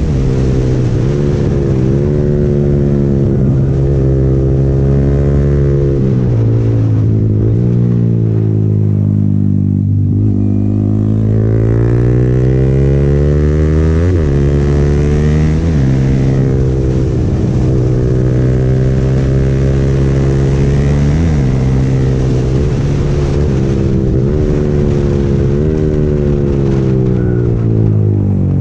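Motorcycle engine under way, its pitch sinking slowly as the bike slows on the engine and climbing again as it accelerates, with several abrupt pitch jumps at gear changes. Wind rushes over the microphone throughout.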